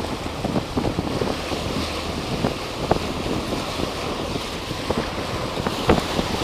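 Wind buffeting the microphone over the wash of waves and water along the hull of a fishing boat trolling offshore, with a few light knocks scattered through it.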